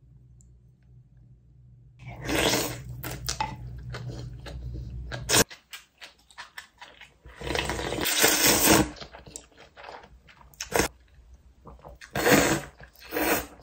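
Close-up eating sounds of Korean beef bone soup: slurping and chewing mouthfuls, sipping broth from the bowl, and slurping noodles near the end, starting about two seconds in. A couple of sharp clicks of utensils or bowl come in between.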